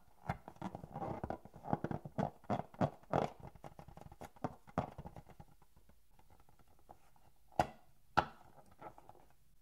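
Hands squeezing and rubbing a slime-filled latex balloon: a dense run of short rubbing and squeezing sounds for the first five seconds or so, then two sharp taps near the end.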